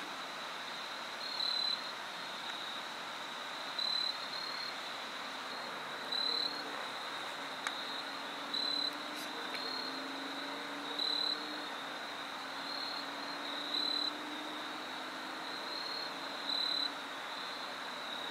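Insects trilling: a steady high-pitched trill with a louder short chirp repeating about every two and a half seconds, over a faint outdoor hiss.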